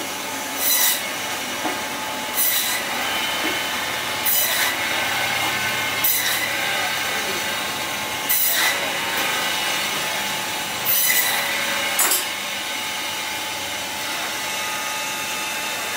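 Electric meat band saw running with a steady whine, its blade cutting through chunks of lamb in short, sharper rasps, seven times at intervals of one to two and a half seconds.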